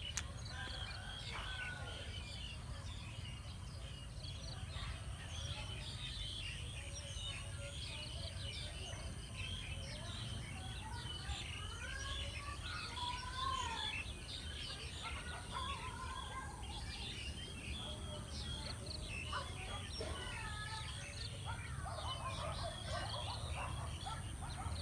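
Many small birds chirping continuously, with a few lower, longer curving calls around the middle and again near the end, over a low rumble and a faint steady high tone.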